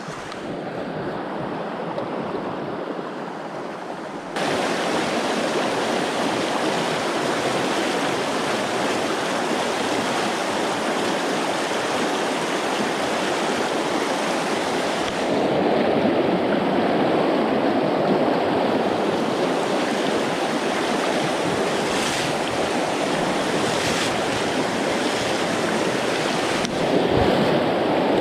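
Trout river water rushing steadily over stones, a continuous hiss of flowing water that steps up in loudness about four seconds in and again around fifteen seconds and near the end.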